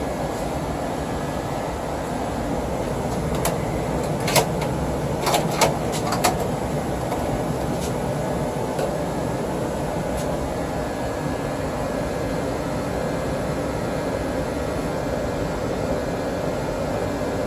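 80% gas furnace running, its blower and burners making a steady rush of air, with a few sharp clicks about four to six seconds in. The furnace is running with the static pressure a little high and the temperature rise too hot.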